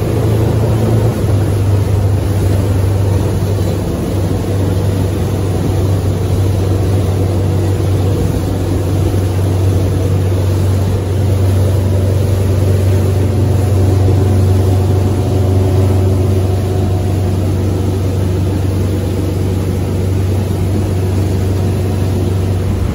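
Arvor motor boat's MerCruiser diesel engine running steadily at cruising speed, a constant deep drone, with the wake rushing and churning behind the stern.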